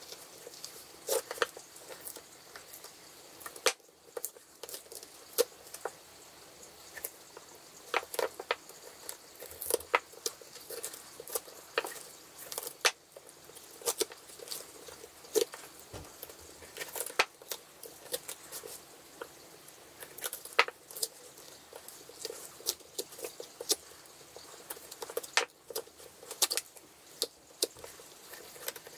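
Layers of an eyeshadow palette's cardboard being prised up with a knife and peeled and torn away: many small, irregular scratches, rips and clicks.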